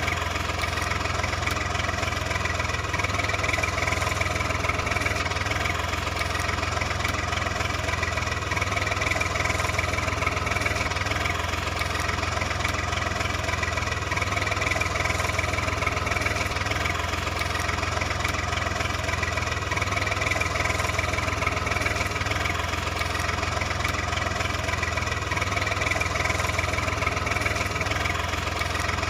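A steady engine sound like a truck idling: a deep, even hum with no change in pitch or level.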